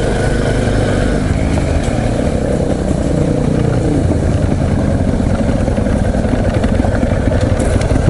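Motorcycle engine running at low revs as the bike rolls slowly onto gravel. The pitch drops about two to four seconds in as it slows, then settles into a steady idle.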